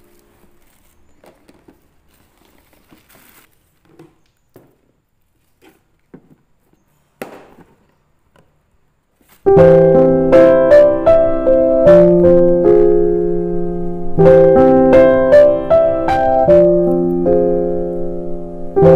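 Faint scattered clicks and small knocks, then about halfway through background piano music starts suddenly and carries on, playing a repeating pattern of notes and chords.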